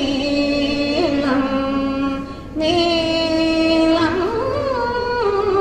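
Female voice singing a slow Carnatic-style melody in long held notes, with a brief break about two and a half seconds in.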